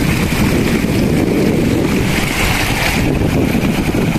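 Wind buffeting the microphone, a loud, steady rumble.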